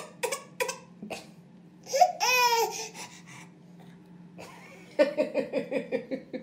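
Toddler crying: a few short sobs, then one drawn-out wavering wail about two seconds in. Near the end, a quick run of laughter.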